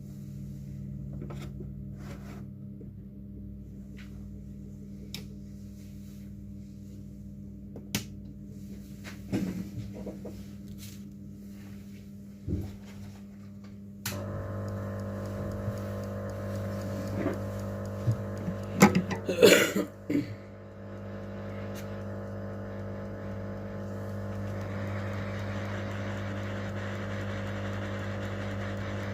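Steady electric hum of repair-bench equipment that steps up to a louder motor or blower sound about halfway through, with scattered clicks and taps of small tools on the phone and a quick cluster of them a little before the two-thirds point.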